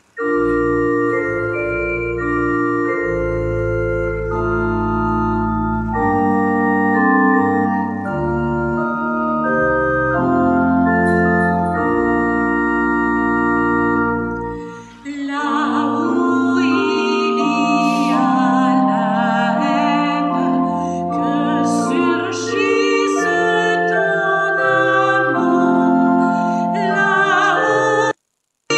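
Church pipe organ playing the introduction to the entrance hymn in sustained chords over deep pedal bass notes. About halfway through, a woman's solo voice comes in singing the hymn over the organ. The sound cuts out briefly near the end.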